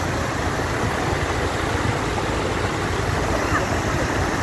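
Water rushing and churning as it pours into a drinking-water reservoir, a steady loud rush with a deep low rumble underneath: the inflow that is filling the tank.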